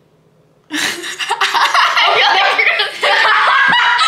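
Two teenage girls laughing loudly together, starting suddenly just under a second in after a near-silent pause.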